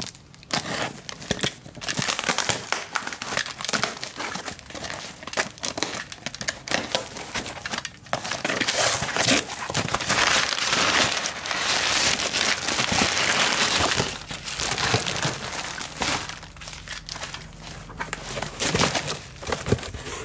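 Packing tape being peeled and torn from a cardboard box, then the paper and plastic packing inside crinkling and rustling as it is handled, with a long, dense stretch of crinkling in the middle.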